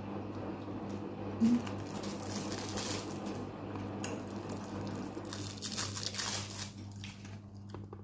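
Close-up eating sounds: chewing and fingers handling a plate of som tam noodles, with two spells of louder rustling about two and six seconds in, over a steady low hum.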